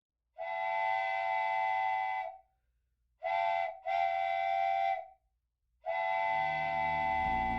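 Train whistle sounding a steady multi-note chord in four blasts: a long one, a short one followed at once by another long one, then a final long one. Low music comes in near the end.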